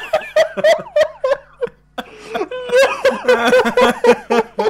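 Laughter in quick rapid pulses, with a short break about two seconds in.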